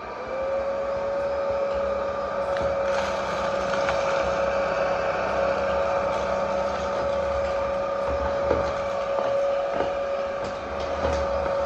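ORFELD cordless stick vacuum switched on at its lowest power setting. Its motor spins up and settles into a steady whine, with a few faint ticks as seeds are sucked up off the tile floor.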